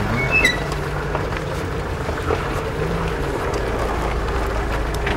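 Off-road vehicle's engine idling steadily, with wind on the microphone. A short high chirp comes about half a second in.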